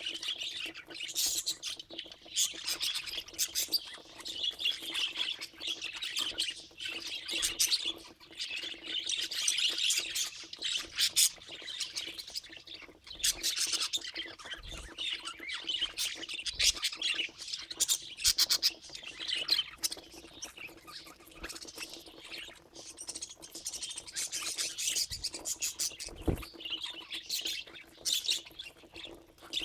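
Budgerigars chattering without a break, with quick chirps and squawks, over a faint steady low hum.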